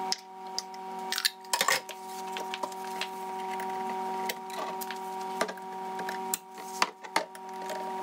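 Glass bottles, a plastic funnel and small plastic caps handled on a kitchen counter: scattered clicks and light knocks, several in quick succession about a second and a half in and again near the end, over a steady hum of several held tones.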